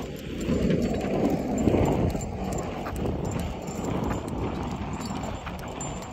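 Wheels rumbling over a paved trail, with wind buffeting the microphone. The rumble is loudest in the first two seconds, with faint irregular ticks throughout.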